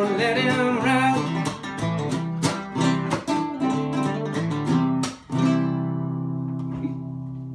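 Nylon-string classical guitar fingerpicked in a steady blues accompaniment as the song closes, then a final chord struck about five seconds in and left ringing as it slowly fades out.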